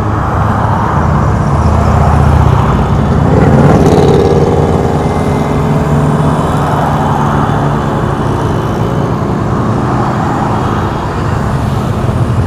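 Column of motorcycles and trikes riding past, their engines running steadily over road noise, with a louder swell as bikes pass close about four seconds in.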